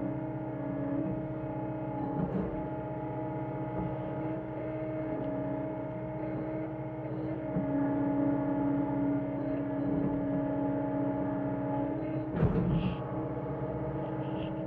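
John Deere 325G compact track loader's diesel engine running steadily, with a clank about twelve seconds in.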